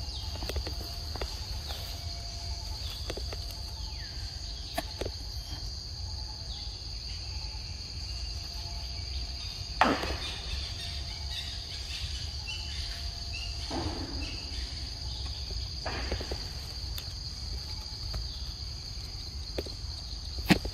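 Steady high-pitched drone of insects, with scattered rustles and clicks and one sharper knock about ten seconds in.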